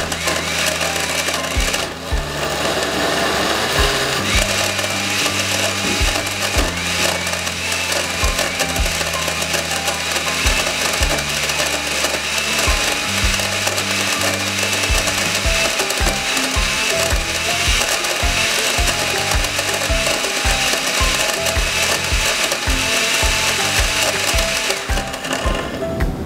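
Osterizer countertop blender running steadily on a thick, chunky smoothie, its blades knocking against sour gummy worms that won't blend up; it cuts off near the end. Background music with a bass line and a steady beat plays over it.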